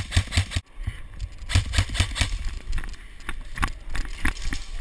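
Running footsteps on a concrete floor with gear rattling and knocking against the jolting helmet camera: irregular thumps and clicks several times a second, starting abruptly.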